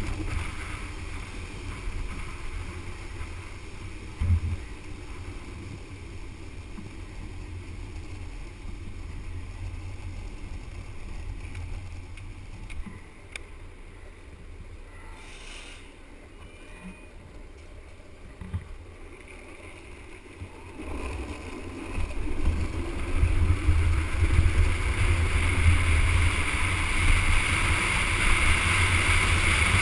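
Street luge rolling down an asphalt road: steady rumble of the wheels on the road surface mixed with wind rushing over the rider's camera microphone. A single knock comes about four seconds in; the noise dies down in the middle and grows clearly louder from about two-thirds of the way through.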